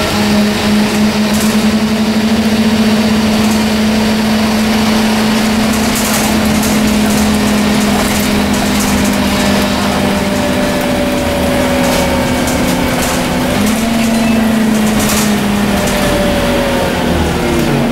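Scania N230UD double-decker bus heard from inside the passenger saloon while under way. Its 9.3-litre five-cylinder diesel and drivetrain run with a steady drone and a higher whine that falls in pitch twice. The drone's pitch steps up about fourteen seconds in, and there are occasional interior rattles.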